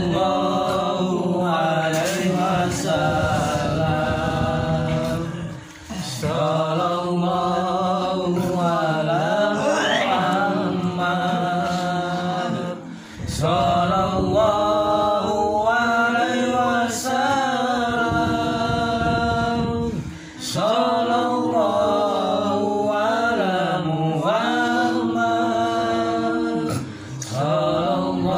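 A voice chanting in long, melodic, drawn-out phrases of about six to seven seconds each, with short breaks between them.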